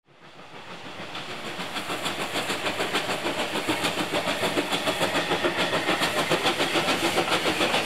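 Steam locomotive running at speed, its exhaust beats in a fast, even rhythm, fading in from silence over the first couple of seconds.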